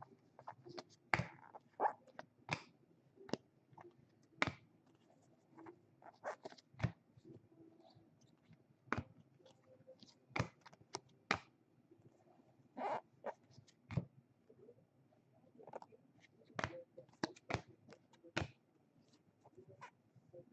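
2018 Bowman baseball cards being flipped through by hand one at a time: irregular light clicks and flicks of card stock, about one a second.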